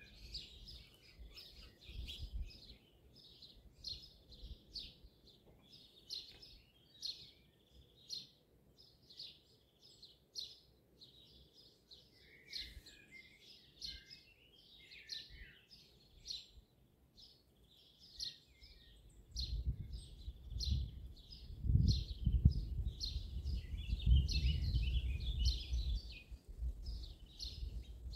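Dawn chorus of songbirds chirping and singing continuously. About two-thirds of the way through, an uneven low rumbling noise comes in and becomes the loudest sound, then fades just before the end.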